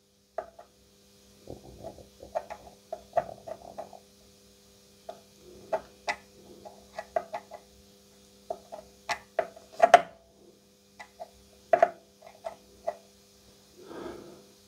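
Small irregular clicks and ticks of an insulated screwdriver working a bias trimmer potentiometer on a valve amplifier, while the output tubes' idle current is being set. A faint steady hum runs underneath, and there is a breath near the end.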